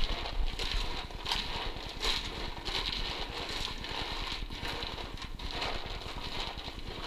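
Dry pet-food kibble rattling and rustling in a plastic tub as two hands stir and turn it over, a dense run of small clicks.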